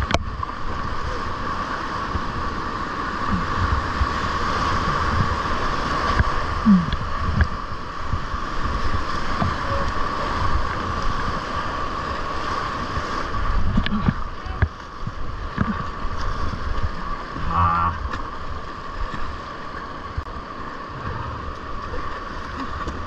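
Steady rush of whitewater in a river rapid, with low uneven rumbling of water and wind on the microphone.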